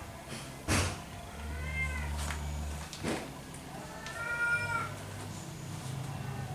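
A cat meowing twice, each call a short rising-and-falling cry, with two sharp knocks between the calls.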